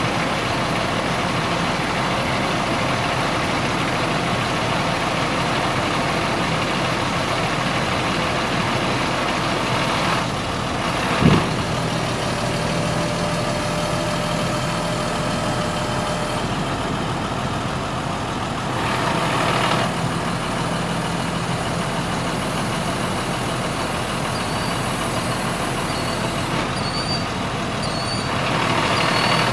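International DT466 7.6-litre inline-six turbo diesel running steadily while the truck's hydraulic aerial boom is worked, with one short sharp knock a little over a third of the way through.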